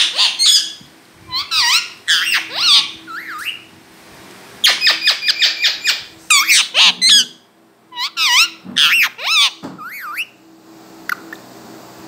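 Indian ringneck parakeet calling in quick clusters of sharp, high calls that bend up and down. The calls die away about ten seconds in.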